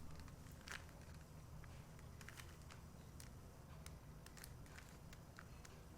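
Faint, irregular clicks of a Rubik's cube's plastic layers being turned one-handed, over a low steady hum.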